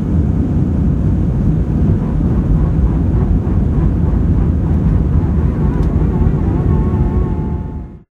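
Jet airliner taking off, heard from inside the cabin: a loud, steady rumble of the engines at takeoff power. A faint whine joins in during the second half, and the sound fades out just before the end.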